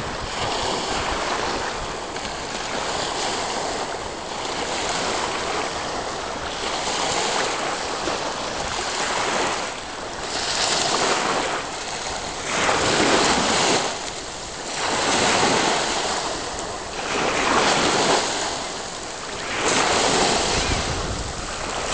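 Small waves washing up a sandy beach and draining back, surging about every two and a half seconds in the second half, with wind buffeting the microphone.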